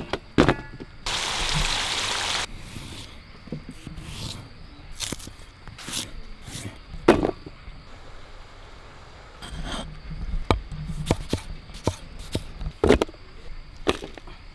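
Knife cutting fresh fruit and vegetables, irregular sharp chops and clicks against the cutting surface, with a short hiss about a second in.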